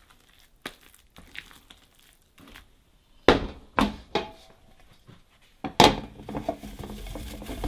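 Kitchen handling sounds: a spatula working thick cake batter in a bowl with faint clicks, then several sharp knocks of dishes against the counter about three and a half and six seconds in, followed by steady clattering and shuffling.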